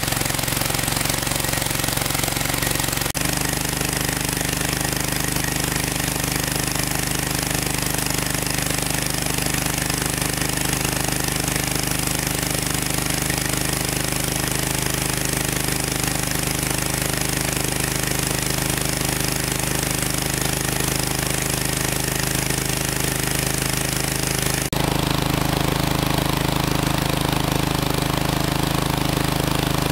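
An engine running steadily with a fast, even chugging pulse. Its tone shifts abruptly about three seconds in and again near the end.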